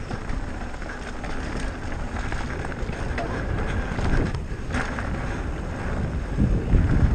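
Wind rumbling on a helmet camera's microphone as an electric mountain bike rolls along a dirt trail, with tyre noise and a few knocks and rattles from the bike. It gets louder near the end as speed picks up.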